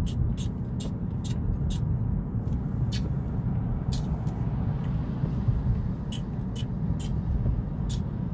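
Car driving on a wet road, heard from inside the cabin: a steady low rumble of road and engine noise, with light, sharp ticks scattered through at uneven intervals.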